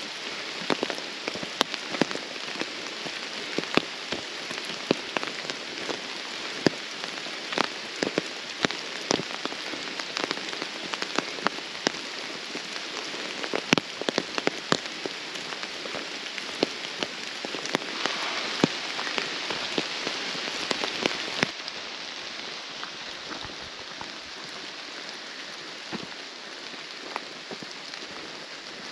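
Rain falling on the forest, a steady hiss with many sharp, irregular drop hits close by. The hiss swells for a few seconds past the middle, then drops back a little.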